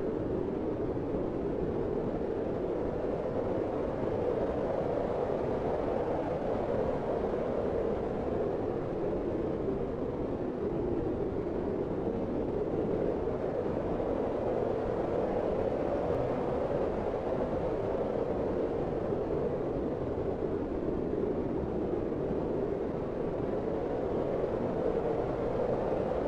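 Steady cold wind: a smooth, even rush of air that swells and eases slowly.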